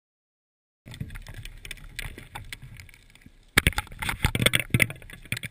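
Underwater noise through a dive camera housing on a scooter dive. A low rumble of rushing water starts about a second in, and from about three and a half seconds in there is a loud run of clicks and knocks.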